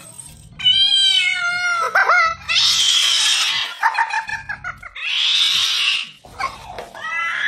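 Domestic cat meowing loudly in long, drawn-out calls that slide down in pitch, three times, with two hissing sounds of about a second each between them.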